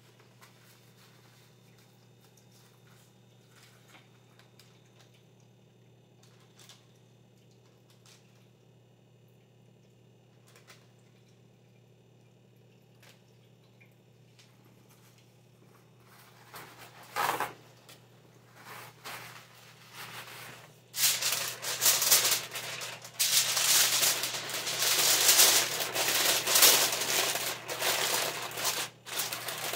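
Aluminium foil being folded and crimped shut around a food pouch: loud crinkling and rustling that starts about halfway through and grows heavier toward the end. Before it there is only a faint low hum and a few soft clicks.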